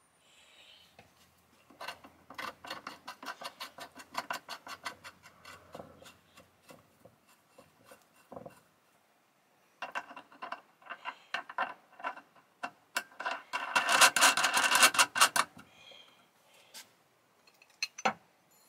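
Metal parts of a restored drill press stand being fitted by hand: rubbing and rapid clicking of metal on metal in two spells, the second louder, then one sharp click near the end.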